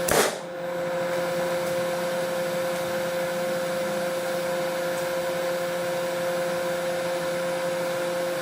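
A single rifle shot from a 7.62x39 AR-15-style rifle right at the start, a sharp crack, over a steady mechanical hum with a constant tone that runs underneath.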